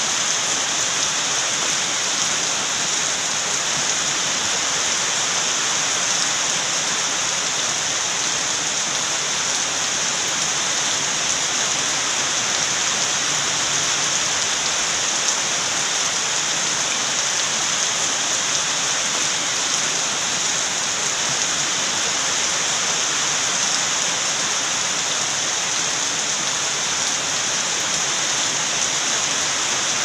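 Steady rain falling, an even hiss that holds without breaks.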